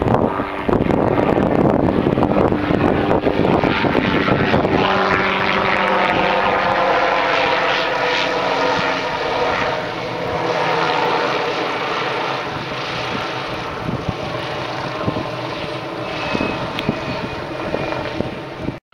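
Hughes 500D (MD 500-series) helicopter running close by: the whine of its turbine and the beat of its rotor, with the pitch of the whine drifting down through the middle. The sound cuts off abruptly at the end.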